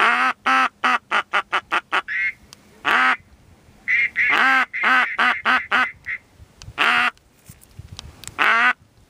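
A duck call blown to bring in circling ducks. It opens with a long quack, followed by a run of shorter, quickening quacks. Then come more quack clusters mixed with higher, thinner notes midway, and a couple of single quacks near the end.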